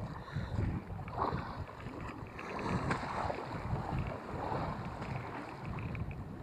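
Wind buffeting the microphone in uneven gusts, over the wash of choppy sea waves.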